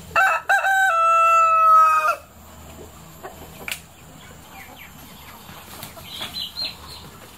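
A kacuk rooster (a kampung-chicken crossbreed) crows once, for about two seconds: a short rising opening, then a long held final note. Faint clucks and chirps from the other chickens follow.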